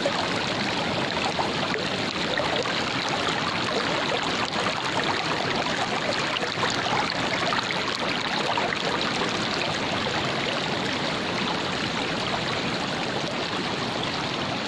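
Shallow mountain stream rushing steadily over stones, heard close to the water.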